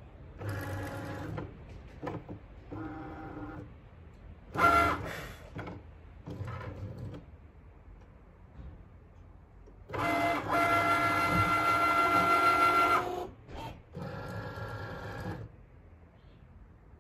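Cricut Maker cutting machine working through a print-then-cut sticker sheet: its carriage and roller motors whine in repeated short bursts as the mat moves. The longest and loudest burst lasts about three seconds, starting about ten seconds in. By the end the cutting mat has been fed back out.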